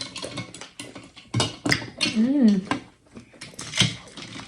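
Eating sounds: spoons clicking and knocking in bowls of fruit and iced coconut water, with a short hummed 'mm' a little after two seconds.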